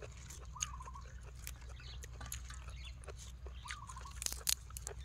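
A person chewing and crunching mouthfuls of spicy papaya salad and raw vegetables close to the microphone: a run of wet clicks and crunches, with a cluster of sharper, louder crackles just after four seconds. Twice, about three seconds apart, a short wavering animal call sounds in the background.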